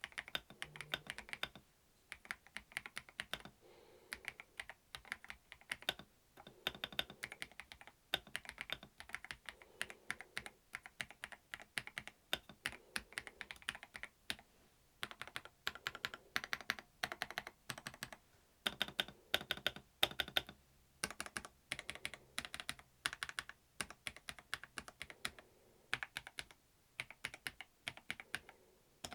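Typing on a PIIFOX ER95 gasket-mounted mechanical keyboard: fast runs of keystrokes broken by short pauses. The keys give a nice sort of thonk, muted and deeper rather than a high-pitched clickety clack.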